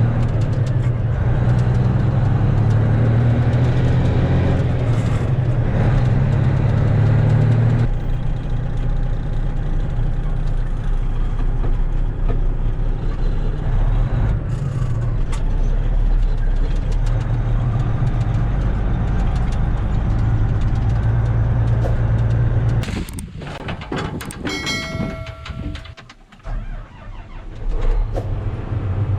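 Large diesel farm machinery running steadily with a deep rumble, the sound changing abruptly about eight seconds in; near the end it drops away briefly and a short run of steady tones is heard.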